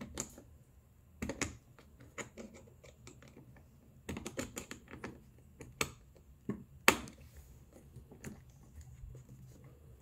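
Worm-drive hose clamp being tightened with a screwdriver onto the vapor canister's hose: irregular small clicks and ticks of the screw and tool, the sharpest one about seven seconds in.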